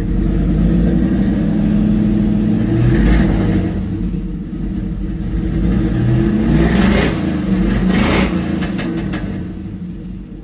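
LS-swapped Chevy Nova's V8 running just after a cold start, its note rising and falling a few times, around three seconds in and again between six and eight seconds.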